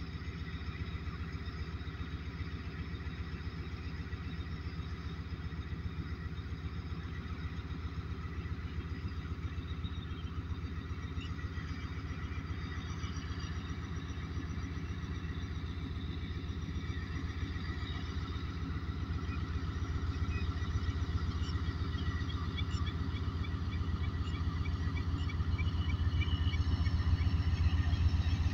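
Diesel engine of a Pakistan Railways ZCU-30 diesel-electric locomotive running steadily as it slowly hauls a passenger train out, growing louder over the last several seconds as it draws near.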